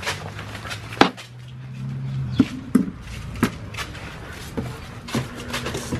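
Hard knocks and clatters of white plastic patio chairs and cardboard boxes being gripped, moved and bumped on a concrete patio, about eight separate knocks, the sharpest about a second in. A low steady hum runs under the first two seconds.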